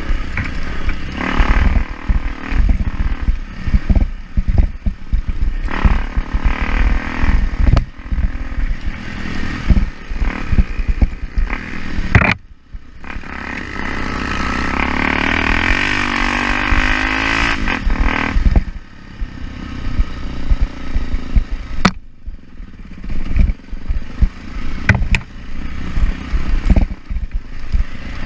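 Off-road motorcycle riding a rough, muddy trail: the engine runs under constant clatter and jolting rumble. Near the middle is a steadier stretch where the engine note rises and then falls.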